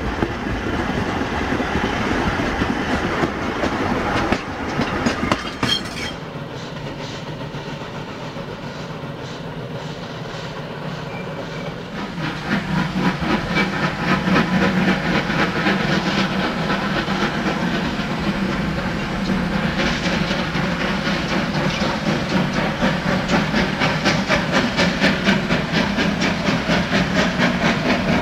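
Class GEA Garratt steam locomotive hauling a goods train upgrade, its exhaust beating in a steady rhythm, growing louder about twelve seconds in.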